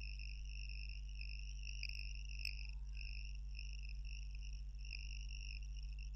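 Faint steady background: a continuous high-pitched trill in two bands over a constant low hum.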